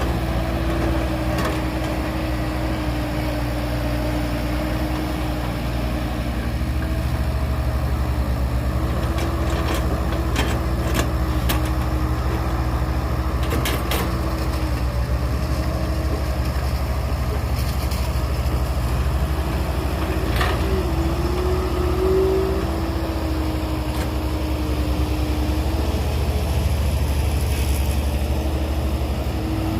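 Heavy diesel engine of earth-moving equipment running steadily, with a low drone and a slightly wavering whine over it. A few short sharp knocks come around the middle.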